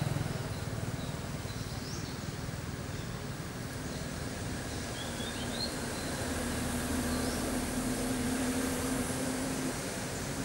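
Outdoor background noise with a low steady hum, and a few short, high rising chirps scattered through it.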